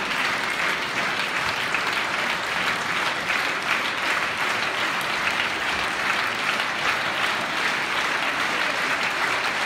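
Large audience applauding steadily, a continuous dense patter of clapping.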